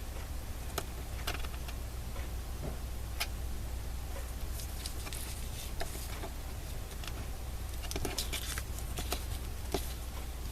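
Paper and small craft items being handled on a desk: scattered light taps and clicks with a few brief papery rustles, over a steady low hum.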